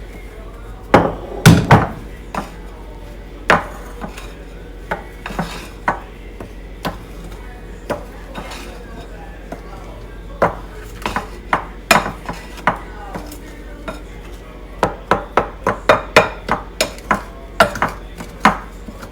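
Spatula knocking and scraping against a small mixing bowl while folding macaron batter: irregular knocks, coming faster near the end.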